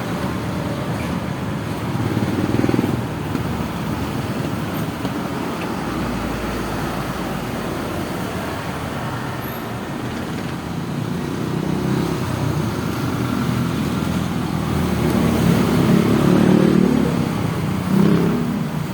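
Road traffic running past, a steady rumble of vehicle engines and tyres that swells near the end, as a vehicle goes by.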